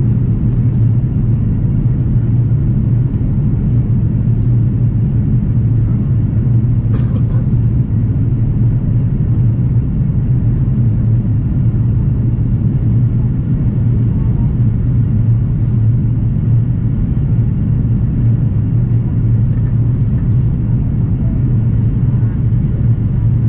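Steady low drone of an Airbus airliner's engines and airflow heard from inside the passenger cabin, unchanging throughout.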